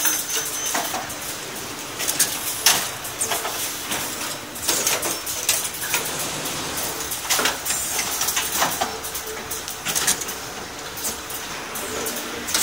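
Automatic garment bagging machine and its overhead hanger conveyor running: irregular clacks and short whooshes of moving mechanism, over a faint steady hum.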